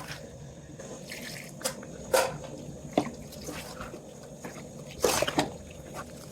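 Scattered wet clicks and splashes of liquid, as from cooking in a pot, with louder ones about two, three and five seconds in, over a faint steady hum.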